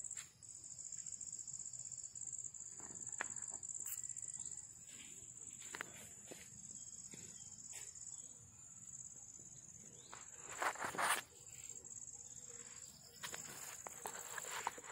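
Steady high-pitched chirring of insects, with scattered rustles and clicks and a louder rustling burst about ten and a half seconds in.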